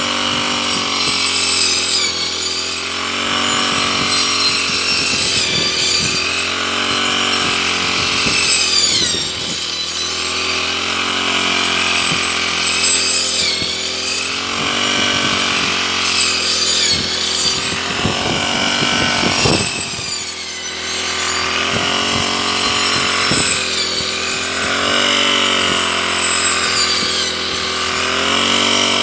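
Petrol brush cutter running and cutting through tall grass, its engine pitch sagging and rising again every few seconds as the blade takes the load.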